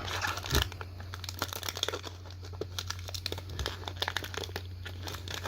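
Foil booster pack wrapper crinkling and crackling in irregular small bursts as it is torn open and handled, over a steady low hum.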